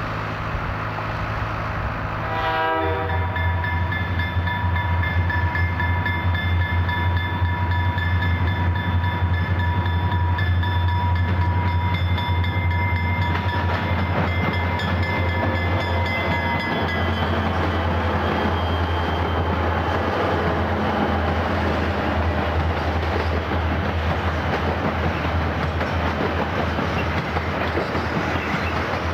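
A track crew's rail saw cuts rail for the first couple of seconds. Then a freight train led by Canadian National diesel locomotives passes close by, sounding a long horn blast for roughly ten seconds over the engines' low drone. The rumble and rattle of passing flatcars loaded with piggyback trailers follows.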